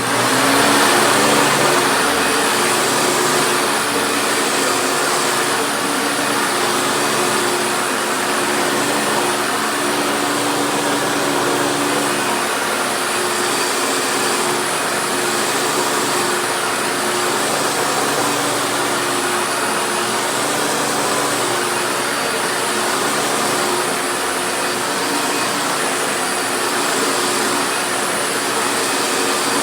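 Late-1990s or early-2000s Hoover upright vacuum cleaner with a 12-amp motor, switched on and running steadily. Its motor hum and airflow start suddenly and hold an even pitch.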